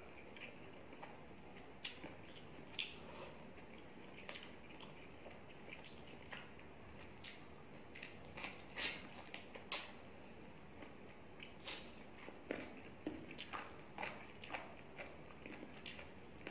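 Close-up eating sounds of chicken curry and rice eaten by hand: irregular wet smacks and clicks of chewing and lips, with fingers squishing the curry-soaked rice.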